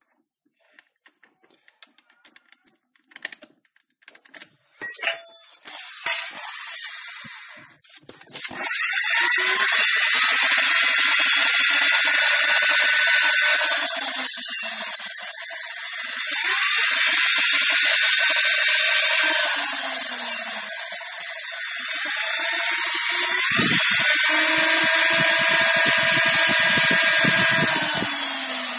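Electric drill with a long twist bit boring into the end grain of a log. After a few light handling clicks, the motor starts about eight seconds in and runs steadily, its pitch dipping and climbing back a few times as the bit bites and clears.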